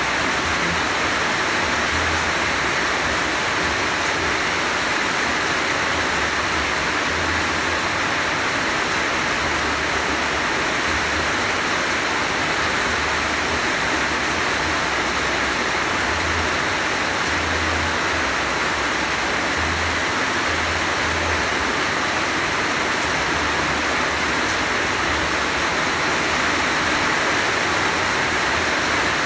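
Heavy rain falling, a steady dense hiss with faint low thuds now and then.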